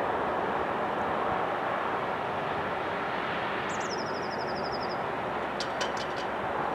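Freight train receding: a steady rushing rumble slowly growing quieter. A small bird sings a short rapid trill about four seconds in, then gives a few sharp chirps.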